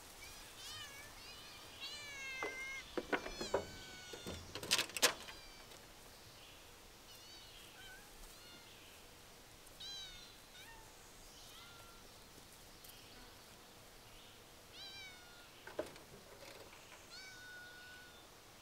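Hungry feral cats meowing repeatedly for food: many short calls that fall in pitch, thickest in the first four seconds, then one every few seconds. A cluster of sharp knocks and clatters, the loudest sounds, comes about three to five seconds in.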